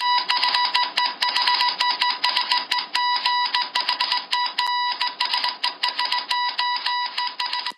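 News-intro sound effect of rapid clicking over a beeping tone switched quickly on and off, like a Morse-code or teletype news ticker. It cuts off suddenly at the end.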